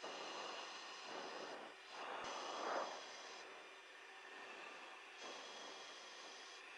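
Faint steady hiss of the camera aircraft's cockpit intercom, with soft rushing swells every second or two, the strongest about two and a half seconds in, and a thin high hiss that switches on and off.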